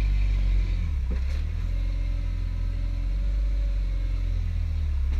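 Jeep engine working under load as it crawls up a rock ledge, a steady low rumble with the revs shifting now and then.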